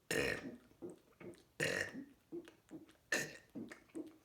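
A person burping in quick succession: three loud burps about a second and a half apart, with softer short sounds between them.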